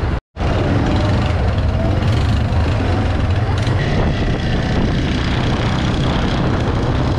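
Yamaha ATV (quad bike) engine running as it is ridden over sand dunes, with steady wind noise buffeting the microphone.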